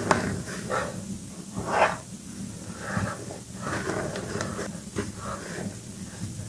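Soft blocks of Reform gym chalk crunching and crumbling as gloved hands squeeze and break them into powder, in irregular dry crackly bursts, the loudest just under two seconds in.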